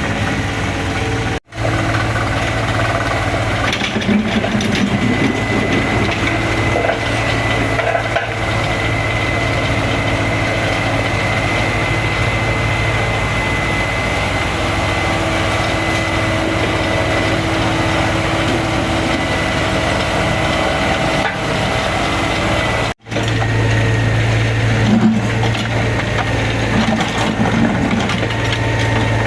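Excavator's diesel engine running steadily under load with a high hydraulic whine, and irregular crunching and cracking as the machine works the road material. The sound cuts out briefly twice, about a second and a half in and near the end.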